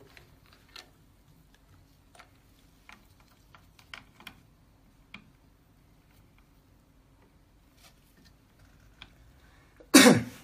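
Scattered light clicks and ticks of plastic ink dampers and tube fittings being handled and pressed onto a printhead, over a faint steady hum. About ten seconds in comes one much louder, brief clack.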